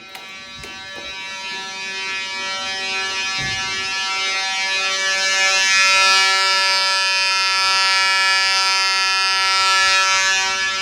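Edwards 892 fire alarm horns sounding a continuous, unbroken buzzing tone. The tone grows louder over the first five seconds or so and then holds steady.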